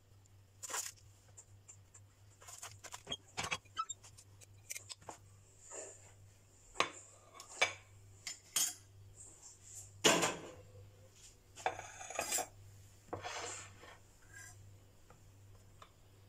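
Ceramic plates and a serving platter being handled as food is plated: scattered irregular clinks and knocks of dishes set down on a stone counter, with a few short scrapes, the loudest about ten seconds in. A low steady hum runs underneath.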